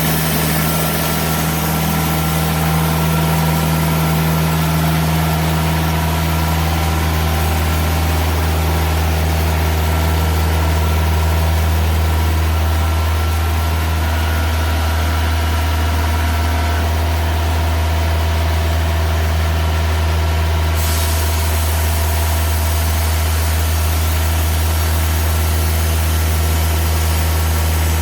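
Engine of a TimberKing 2000 portable bandsaw sawmill running steadily at an even pitch.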